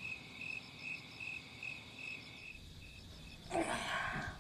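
Crickets chirping in a steady, even pulse of about two to three high chirps a second. A little past three and a half seconds in, a short noisy burst, the loudest sound, lasts under a second.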